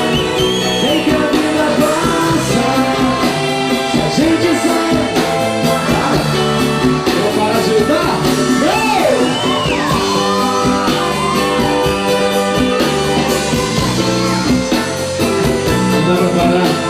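Live band playing a song with singing, guitar and a steady drum beat.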